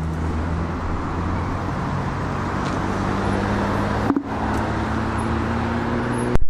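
Steady road traffic on a busy multi-lane avenue below, a continuous wash of tyre noise with the low drone of passing vehicle engines. It dips briefly about four seconds in, and a sharp click comes near the end.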